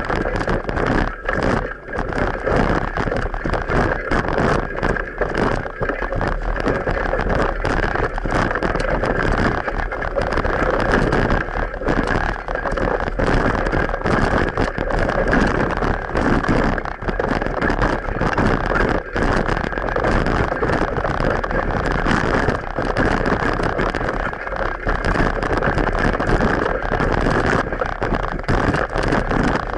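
Bicycle riding noise picked up by an action camera: wind on the microphone mixed with many quick knocks and rattles from the ride over the road surface.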